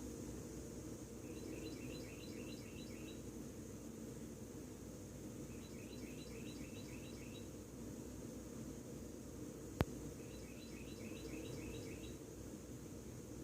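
A songbird singing a short song of about seven quick repeated notes three times, roughly four seconds apart, over a steady high insect hum and a low outdoor rumble. One sharp click comes about two-thirds of the way through.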